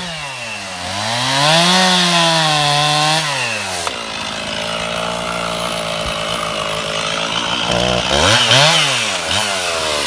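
Stihl two-stroke chainsaw revving up and cutting into a white oak stump at full throttle for about two seconds, then dropping to a steady lower speed. Near the end it is revved twice in quick succession, its pitch rising and falling each time.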